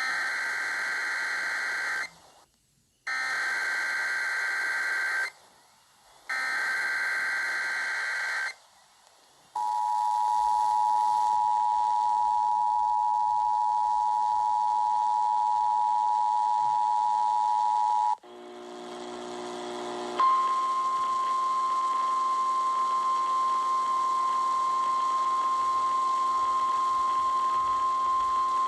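Emergency Alert System broadcast tones: three short buzzy bursts of the SAME digital header, then the two-tone EAS attention signal held steady for about nine seconds. After a brief lower sound comes a single steady tone for about eight seconds.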